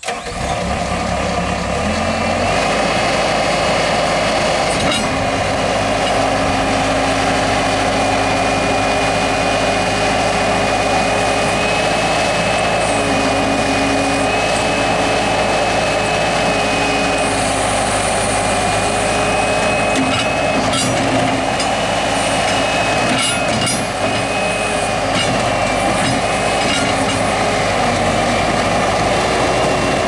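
Diesel engine of a 2005 Bobcat T190 compact track loader starting and settling into a steady run within about two seconds. A thin high whine sits over the engine for much of the time, and there are a few light clicks in the second half.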